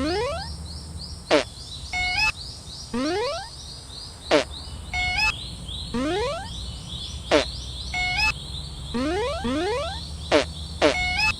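Synthetic cartoon signal sounds from an animated level crossing, repeating on a loop about every three seconds. Each round has a quick falling whistle slide, a short stepped beep figure, a fast run of rising chirps, and a string of twittering chirps, over a low hum.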